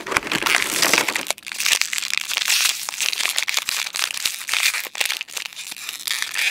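Plastic blister packaging of a Disney Doorables toy multi-pack crinkling and crackling under the fingers as a compartment is pried open, in a busy, irregular run of small snaps and clicks.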